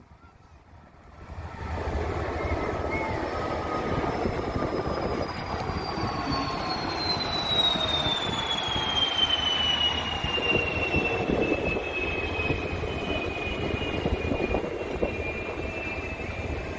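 Jet engines of passenger airliners flying overhead in formation: a broad engine roar that swells in about a second and a half in, with a high whine that slowly falls in pitch as the planes pass.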